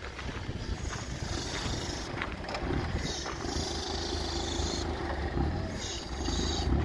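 Engine of a 2015 Toyota 4,000 lb-capacity forklift running at low speed with a steady hum, with patches of high hiss now and then.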